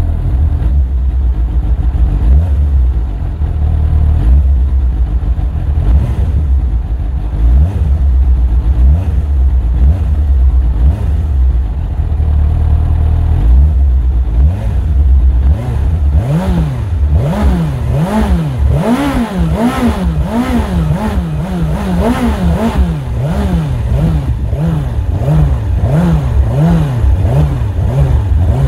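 Motorcycle engine idling with a low rumble, then, a bit past halfway, revved in quick repeated throttle blips, the pitch rising and falling about three times every two seconds; the blips get smaller toward the end.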